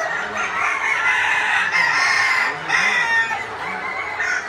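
A large flock of caged chickens clucking and calling over one another without pause.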